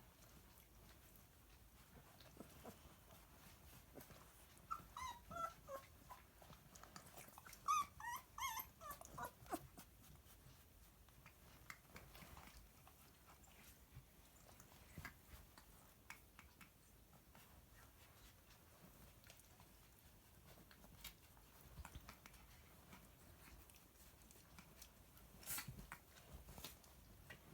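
Faint, high-pitched whimpering and squeaking from two-week-old galgo puppies: a run of short bending calls about five to ten seconds in. Otherwise only faint scattered clicks, with one brief sharp sound near the end.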